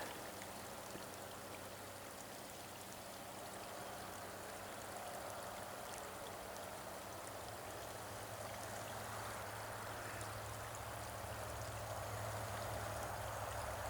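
Small waterfall running into a pond: a steady rush of falling water, growing slightly louder toward the end.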